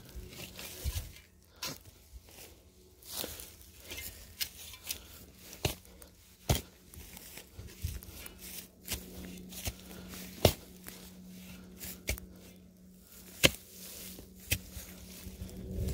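Birch roots cracking and tearing out of the soil under a winch's pull: irregular sharp snaps, a few of them loud, over a steady low hum.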